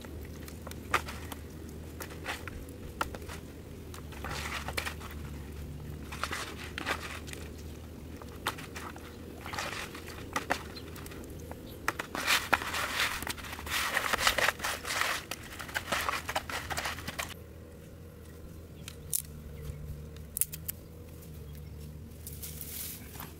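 Hands squishing and kneading raw tokay gecko pieces in seasoning in a plastic basin: irregular wet squelches and clicks, busiest from about ten to seventeen seconds in. After that it goes quieter, with only a few sharp clicks.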